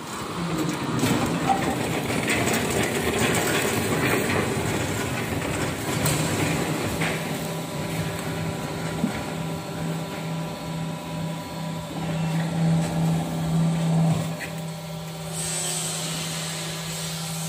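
Hydraulic rubber-tile vulcanizing press at work as it closes on the mould: a steady hum from its hydraulic drive under rough mechanical noise, the noise easing off near the end while the hum carries on.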